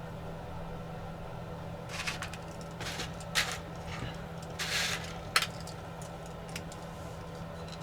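Small tools and fingers working on a DJI Mini 4 Pro's plastic body and internal parts during disassembly: a few short scrapes and clicks, the loudest a sharp click about five seconds in, over a steady low hum.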